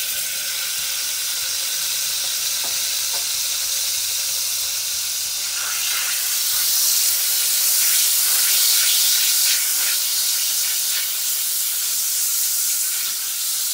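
Butter sizzling as it melts in a hot stainless steel pot, a steady hiss. From about six seconds in, a wire whisk stirs and scrapes through it, with light ticks against the pot.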